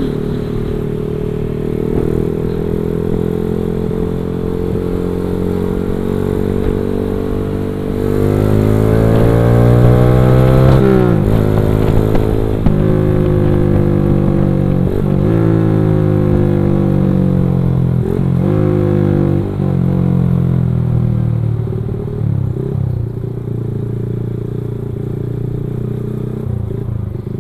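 The rider's own motorcycle engine, running steadily at first and then accelerating about eight seconds in. The revs climb, drop suddenly and climb again several times, then settle to a steadier run near the end.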